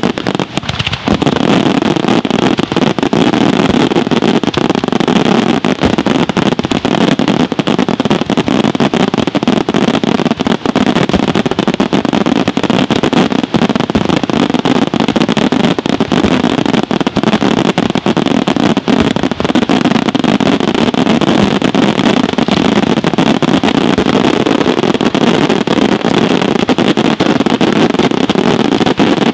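Daytime aerial fireworks barrage: a dense, unbroken run of shell reports and crackling stars that swells about a second in and holds steady.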